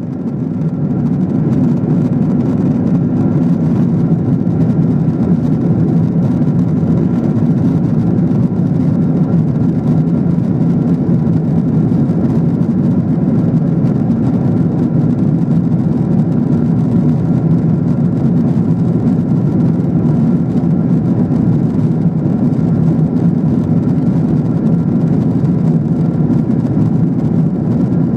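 Steady cabin noise inside a Boeing 777-300ER at cruise: a low, even rumble of airflow and its GE90 turbofan engines, with a faint steady whine above it. It fades in over the first second.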